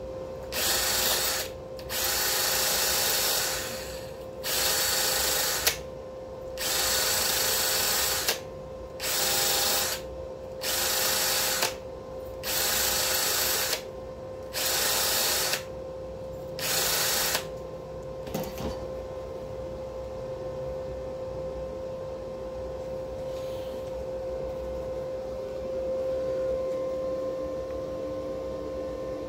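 Flux-core wire welder striking a series of short welds: nine bursts of arc noise, each about one to two seconds, starting and stopping sharply, over a steady hum. After the last weld only the hum remains, with a single click.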